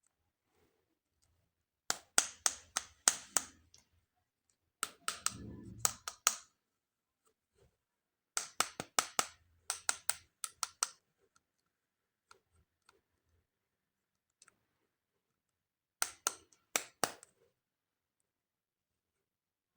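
Sharp clicks in four quick runs of several strokes each, the sound of toy parts being clicked and handled, with a short low rumble under the second run.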